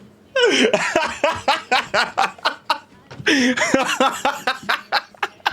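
Laughter in quick, repeated short bursts, in two long fits with a brief break between them.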